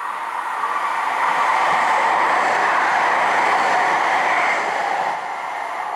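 Siemens S70 light rail train passing close by, its wheels running on the rails. The sound swells as it approaches, holds loud while it passes and eases off a little near the end.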